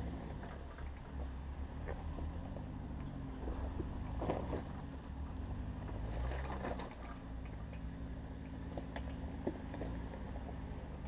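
Jeep engine running at low revs as it crawls up a rocky dirt trail, with irregular knocks and rattles as the tyres go over rocks; two louder stretches about four and six seconds in.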